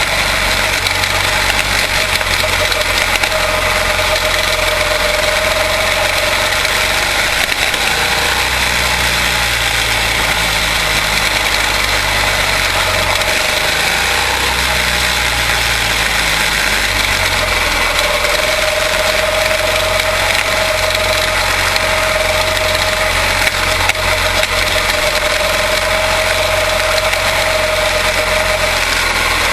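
Quarter midget race cars with single-cylinder Briggs & Stratton Animal engines running at racing speed. A loud, steady engine drone whose pitch wavers slightly as the cars lap.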